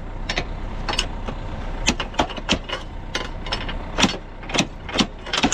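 Hammer knocking and prying at the metal latch of a wooden farm trailer's tailgate to release it: about ten irregular sharp metal clanks, with the latch chain rattling. A tractor engine idles steadily underneath.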